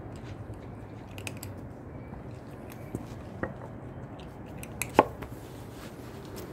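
Two cats crunching dry kibble off a tiled floor: scattered small crunches and clicks, the sharpest about five seconds in, over a steady low hum.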